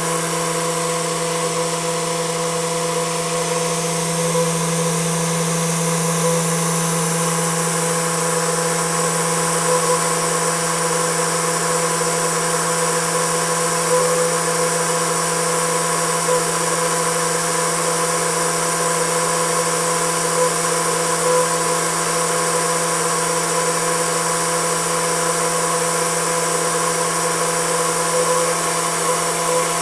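Homemade Tesla turbine spinning at about 10,000 rpm on 15 psi: a steady hum-whine with several overtones, over a steady hiss.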